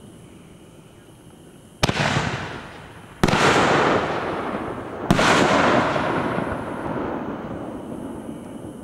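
Aerial fireworks bursting: three sharp bangs, the second about a second and a half after the first and the third about two seconds later. Each bang is followed by a long fading tail.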